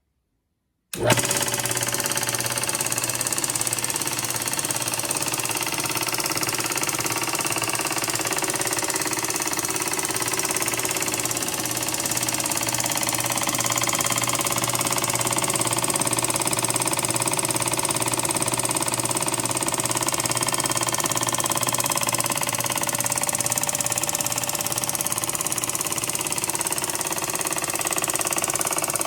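Vintage 1930s Walker-Turner Driver Line scroll saw running: its original electric motor and reciprocating blade mechanism, starting abruptly about a second in and running steadily and loudly with a low hum.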